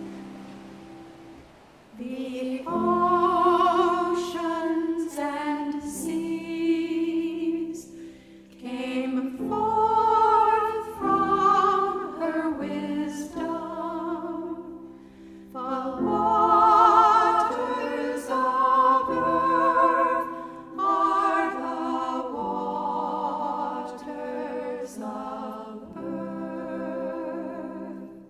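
Song with voices singing long, held, choir-like phrases with vibrato, each lasting a few seconds with short breaths between. A held note dies away over the first couple of seconds before the singing begins.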